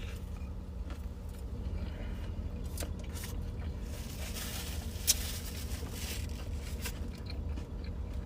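Steady low rumble of a car's engine idling, heard from inside the cabin, with small clicks, scrapes and rustles of food and packaging being handled. One sharp click about five seconds in.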